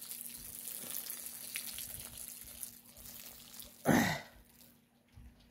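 Steady hiss of rain falling during a thunderstorm. About four seconds in, a brief loud whoosh sweeps down in pitch, after which the hiss stops.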